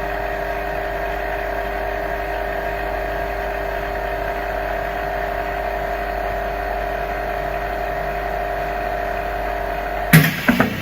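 Vacuum laminating machine running its vacuum and pressing cycle, a steady hum with a few steady whining tones. About ten seconds in, a sudden loud burst of noise cuts across it.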